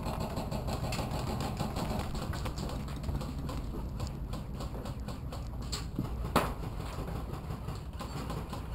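Footsteps on a dirt floor with clothing and gear rustling against a body-worn camera, with one sharp click a little over six seconds in.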